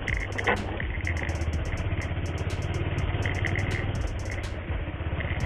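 Motorcycle engine running steadily at low speed while the bike is ridden along a rough dirt track, with a single brief knock about half a second in.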